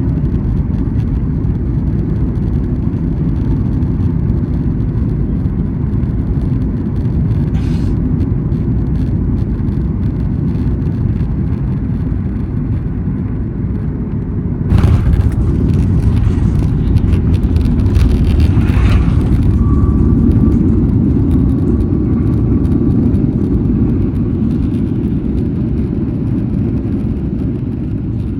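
Jet airliner cabin rumble on final approach, broken about halfway through by a sudden jolt at touchdown: a hard landing. The rumble then grows louder for several seconds as the plane rolls out on the runway, and eases near the end.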